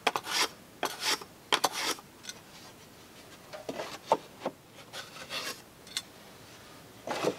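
Stanley low-angle block plane shaving a western red cedar shingle: three quick scraping strokes in the first two seconds. After that, a few softer scrapes and rubs as the shingle is held up against the siding to test the fit.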